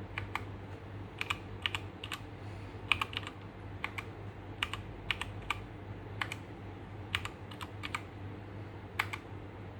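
Keychron K2 mechanical keyboard with Gateron Brown switches and a plastic frame being typed on: uneven key clacks, about two or three a second with short pauses, over a steady low hum.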